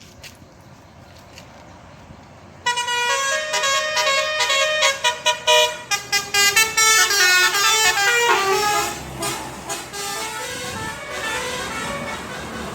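A bus's Basuri telolet horn playing a fast melody of changing multi-tone notes. It cuts in sharply about two and a half seconds in and runs for around six seconds. Then the bus's engine and road noise rise as it passes.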